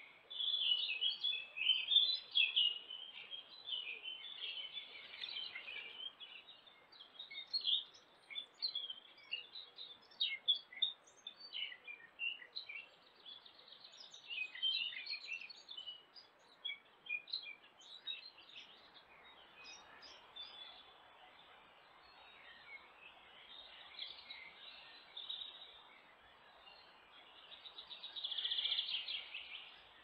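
Several songbirds singing and chirping at once, their calls overlapping, busiest in the first half and again near the end, over a faint steady hiss.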